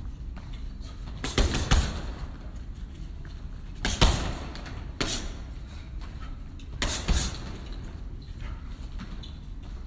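Punches thudding into a hanging heavy punching bag in short bursts: a pair about a second and a half in, single blows around four and five seconds, and another pair about seven seconds in.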